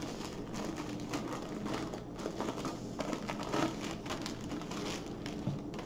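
Clear plastic wrapping crinkling and rustling in irregular bursts as it is pulled and slid off a rolled diamond painting canvas.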